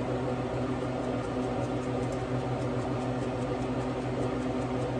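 Steady low mechanical hum that holds one pitch without change.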